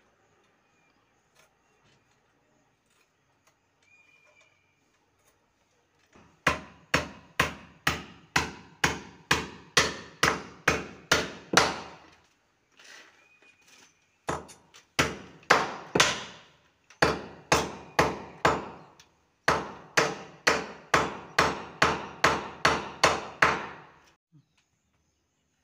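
Hammer striking the anchor bolts of a metal AC mounting bracket, driving them into a masonry wall. The blows are sharp, at about two a second, in three runs with short pauses between them. They start about six seconds in and stop a second or two before the end.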